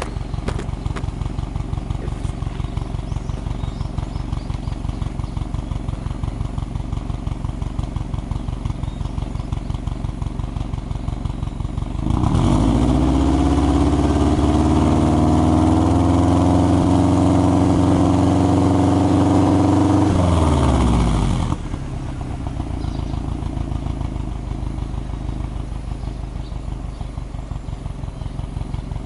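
Subaru Impreza WRX STI's turbocharged flat-four boxer engine heard at the exhaust tip: it idles, is revved up about twelve seconds in and held at a steady higher speed for about eight seconds, then drops back to idle.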